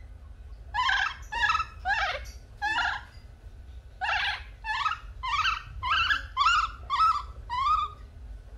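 Baby macaque crying: about a dozen short, high calls at roughly two a second, in two runs with a brief pause between them.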